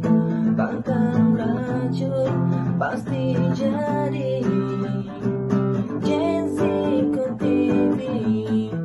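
Background music led by acoustic guitar, strummed and picked in a steady run of chords.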